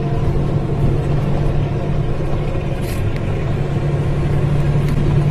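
Steady drone of a car at highway speed: engine hum and tyre and road noise heard from inside a moving car, with a couple of faint clicks about three and five seconds in.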